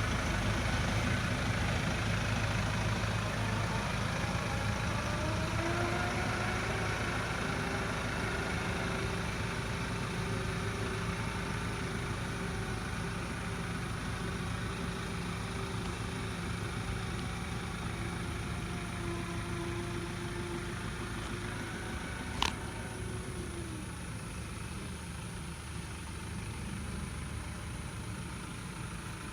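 Tractor engine running steadily; its pitch rises about five seconds in, holds, and drops back about twenty-two seconds in, as when revved up to work the front lift. A single sharp knock comes just as it drops back.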